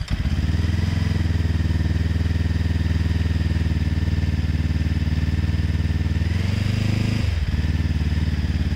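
Zongshen Cyclone RZ3S motorcycle engine running steadily, with a brief change in its note about seven seconds in. The engine runs with the headlight's plastic ring removed, and there is no plastic rattle from the headlight: the resonance is gone.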